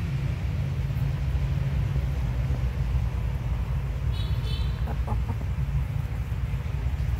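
Steady low rumble, with a brief high chirping squeak about four seconds in.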